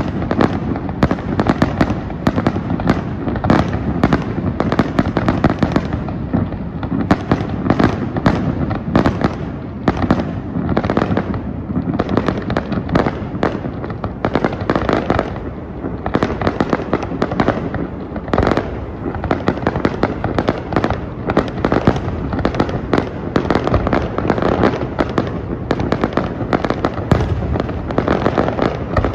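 Fireworks display: a rapid, continuous barrage of bangs and booms, many shells a second, over a steady rumble of echoing explosions.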